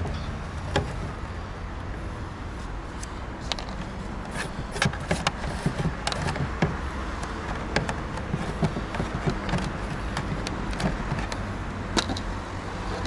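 Scattered small clicks, taps and light knocks of hands handling cable, connectors and tools at the motor housing of a roof-mounted automatic satellite dish, with a sharper knock at the start and another near the end. A steady low rumble runs underneath.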